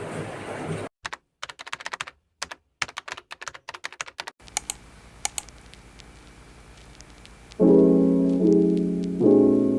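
Brief hiss, then a few seconds of rapid, irregular clicking of keys being typed on a computer keyboard. About three quarters of the way in, soft piano music begins.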